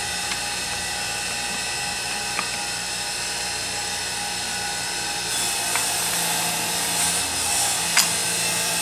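Steady machine whine made of many fixed tones, from equipment running in the workshop. A few small metallic clicks sound over it as starter-motor gearbox parts are fitted together, the sharpest about eight seconds in, and a hiss joins past the middle.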